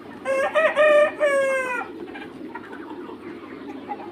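A young Mía cockerel crows once: a loud call of about a second and a half, broken into short notes and ending in a long falling one.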